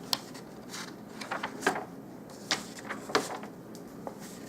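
Handling noises as items are rummaged through: a series of short, light knocks and rustles, irregularly spaced.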